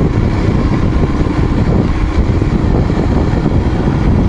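Motor vehicle driving a dirt trail: a steady, loud rumble of engine and road noise.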